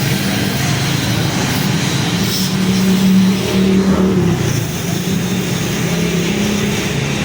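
A car engine running, its pitch wavering slightly up and down with a small swell in the middle.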